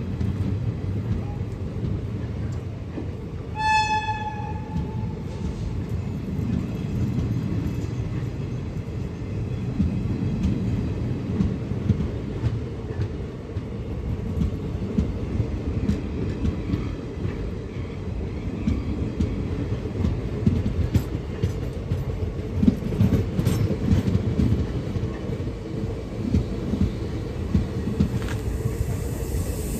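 Passenger train running with a steady low rumble, and a short horn blast about four seconds in. In the second half the wheels click over rail joints.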